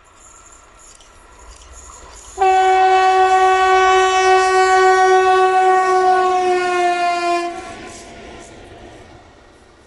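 A single long horn blast, about five seconds, from a Ludmilla-type (DB class 232 family) diesel locomotive sounded as a greeting; its pitch sags slightly as the locomotive passes, after which the locomotive's running noise fades away.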